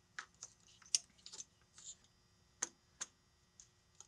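Scattered short plastic clicks and taps as engine-bay connectors and vacuum lines are worked loose by hand, with the sharpest click about a second in.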